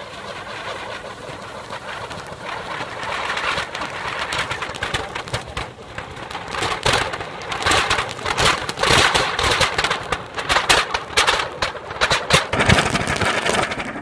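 Anar (flower-pot fountain firework) burning with a steady spraying hiss that builds up, then dense sharp crackling from about halfway through, loudest near the end.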